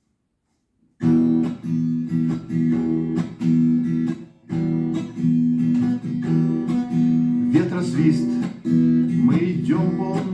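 Acoustic guitar strummed in a steady chord rhythm, starting about a second in; a singing voice joins near the end.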